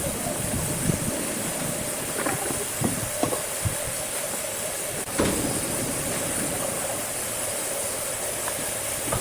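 Sawmill machinery running with a steady hum and a high hiss, with scattered knocks and clunks, one louder about five seconds in.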